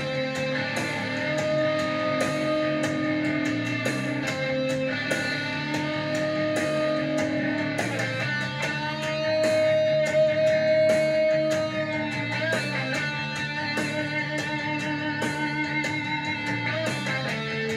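Rock music playing: electric guitar over drums, with a steady beat of sharp drum and cymbal hits.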